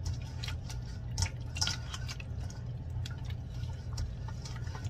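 Wet squishing and light slapping of hands massaging lemon juice into a raw whole chicken in a stainless steel bowl, in short irregular squelches over a steady low hum.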